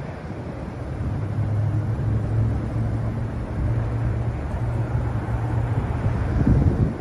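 A steady low engine hum that sets in about a second in, over wind rumbling on the microphone. Near the end there is a louder gust of wind buffeting.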